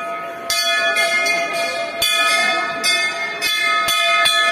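Hanging temple bell rung by pulling its rope, struck again and again about once a second, each strike sharp and the clear, many-toned ring carrying on between strikes.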